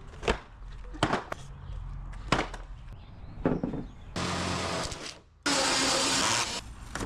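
A handful of sharp knocks from wood being handled, then a power tool running in two short bursts of about a second each, starting and stopping abruptly.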